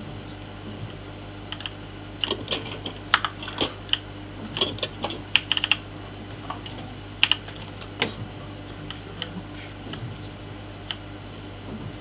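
Keys of a Mission GGK 3.5 mechanical keyboard clicking in quick irregular bursts as they are pressed, densest in the middle and thinning out to scattered single presses near the end.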